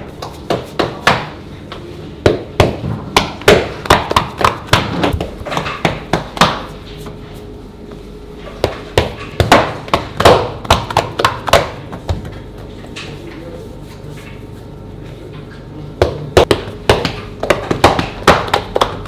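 Hands slapping and patting balls of bread dough down onto a floured marble counter: quick runs of sharp slaps, several a second, in three bursts with pauses between, over a steady low hum.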